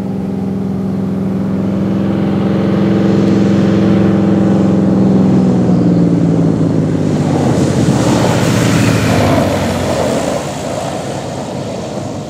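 Cessna T207's turbocharged six-cylinder engine and propeller droning in a low pass, growing louder as it approaches. About six seconds in, the pitch drops as the plane goes by, with a rushing noise at its loudest, and then the sound fades.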